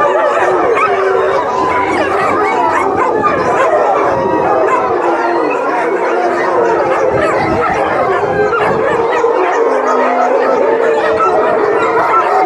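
Many dogs howling together, their overlapping wavering howls forming a continuous wolf-like chorus, with some barks and yips mixed in.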